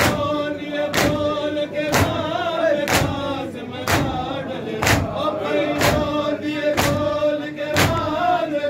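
Shia mourners performing matam: a crowd of men strike their chests in unison about once a second. Between the strikes, men chant a nauha (mourning lament) in a sustained, wavering melody.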